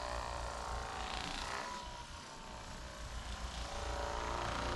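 Electric percussion massager running with a steady motor buzz. It eases off a little around the middle, then picks back up.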